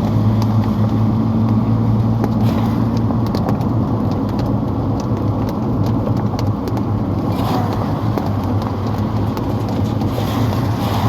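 Engine and tyre noise of a moving road vehicle, with a steady low hum that fades about three seconds in.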